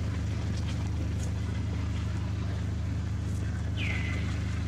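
A steady low engine-like drone, even and unchanging. A short high chirp falls in pitch about four seconds in.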